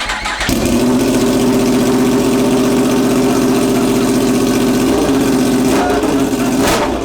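2023 Yamaha R1M's crossplane inline-four, running through a straight pipe with no muffler, catching just after the start and settling into a loud, steady idle.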